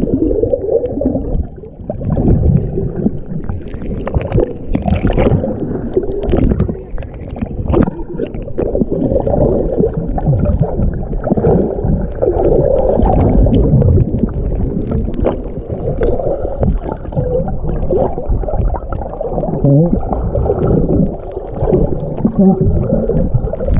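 Muffled underwater sound of churning surf: low rushing and gurgling water in a strong current, with many short crackles and knocks from bubbles and stirred-up sand and stones.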